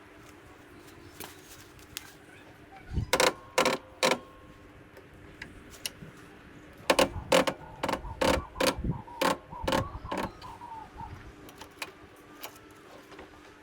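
Hard clicks and knocks of hands and tools working on a cylinder mower's blades and adjusters: three sharp strikes about three seconds in, then a quick run of knocks from about seven to ten seconds in.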